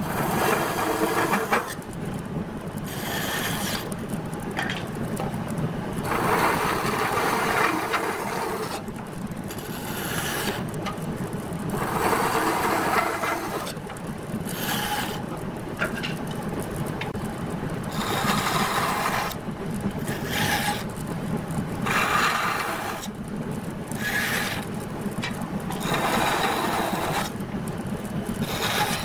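Band saw running steadily, cutting through a wooden strip again and again: a series of short cuts, each about a second or two long, every couple of seconds, over the saw's constant hum.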